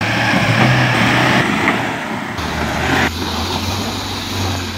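Dacia Duster's engine running under load as the SUV climbs a steep muddy bank. The sound shifts abruptly about one and a half, two and a half and three seconds in.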